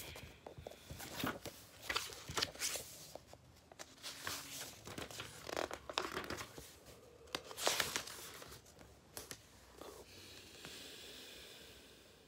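Pages of a paperback book being flipped through by hand: a string of quick, irregular papery swishes and flutters that dies down near the end.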